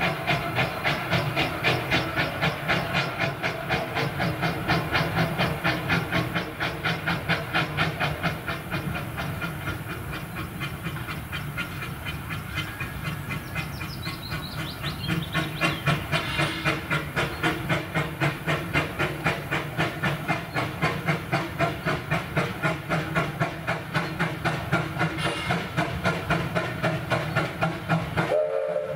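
Narrow-gauge steam locomotive working a train, its exhaust beating in a steady rhythm of about three to four chuffs a second with steam hissing. The beats soften a little midway.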